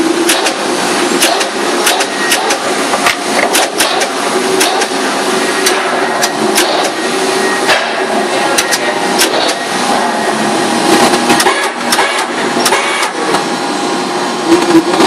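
Paper-trimming machinery running steadily, with frequent irregular sharp clacks and knocks on top.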